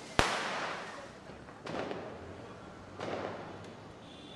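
Diwali firecrackers going off: one sharp, loud bang about a quarter second in that echoes away over about a second, then two fainter, duller bangs about a second and a half apart.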